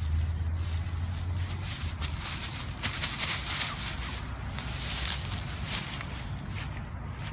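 Dry fallen oak leaves crunching and rustling in irregular bursts as they are stepped on and stirred by a dog rooting through them for a ball. A low rumble runs under the first couple of seconds.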